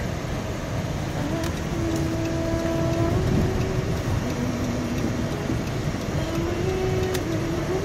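Steady road and engine rumble heard from inside a moving car's cabin on a snow-packed road, with a few faint held tones over it.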